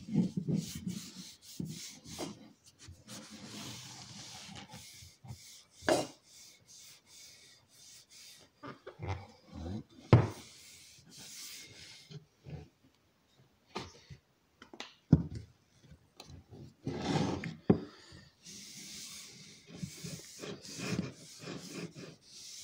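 Cloth rag rubbing oil into a wooden axe handle, a scuffing, rasping hiss in stretches, broken by a few sharp knocks as the axe is handled on a wooden table.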